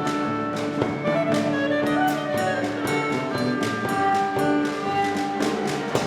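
Klezmer band with clarinet, violin, piano, acoustic bass and percussion playing a lively sirba, a brisk dance tune: a melody line over chords and bass, with regular drum strokes.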